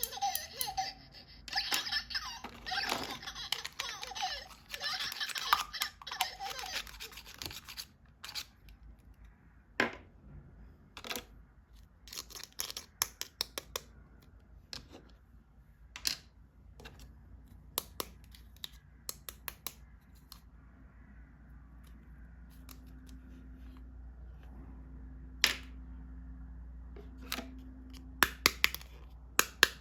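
Packaging crinkling and tearing for about the first seven seconds, then scattered sharp clicks and taps as toys are unboxed and handled.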